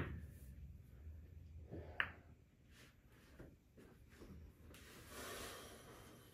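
Pool balls rolling across the table cloth after a shot, with one sharp, briefly ringing click of balls striking about two seconds in. A soft rustle comes near the end.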